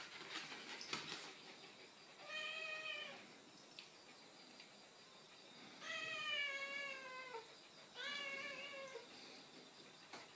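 A domestic cat giving three drawn-out meows, the second one the longest and sliding down in pitch at its end. A few soft knocks come in the first second or so.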